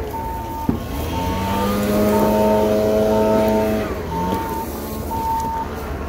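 Reversing alarm on a heavy vehicle sounding a steady high beep about once a second, six beeps in all. Underneath, a heavy diesel engine revs up about a second in, holds, and drops back near the end, with a low rumble throughout and a single sharp click near the start.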